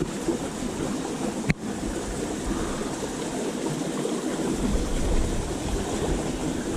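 River water flowing steadily, with a single sharp click about a second and a half in.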